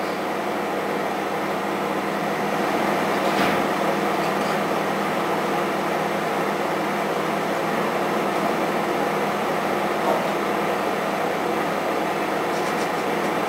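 Samsung microwave oven running on full power with an egg heating inside: a steady hum, with a light knock about three and a half seconds in.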